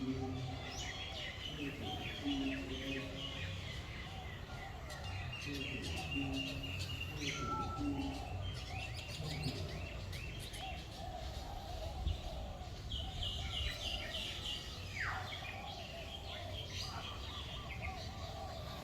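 Many birds chirping and calling at once in a crowded chorus of short, overlapping chirps and trills, with one call sliding steeply down in pitch late on, over a low steady rumble.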